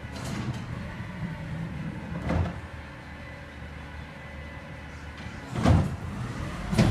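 Recycling garbage truck running with a steady low rumble while a blue recycling cart is lifted and tipped into it. There is a light knock a little after two seconds, then two loud thumps, one about five and a half seconds in and one at the very end, as the cart is dumped.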